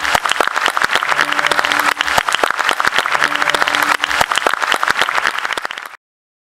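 Audience applauding, dense clapping that stops abruptly about six seconds in.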